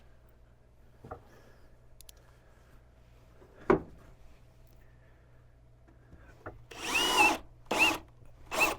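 Power drill driving a screw into wood in three short trigger bursts, the motor speeding up and slowing in each, the first burst the longest; the screw does not seem to go in. A single sharp knock comes a little before halfway.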